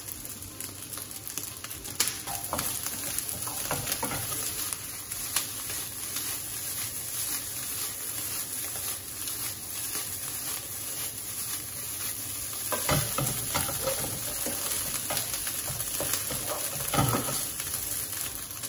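Egg fried rice sizzling in a nonstick pan as it is tossed and stirred with a wooden spatula, with scattered scrapes and knocks of the spatula against the pan.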